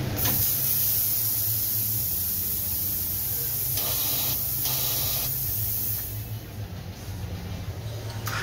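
Steam hissing hard out of a Vibiemme Lollo espresso machine as it is vented, with two louder spurts partway through, before dying away about six seconds in. A steady low hum runs underneath.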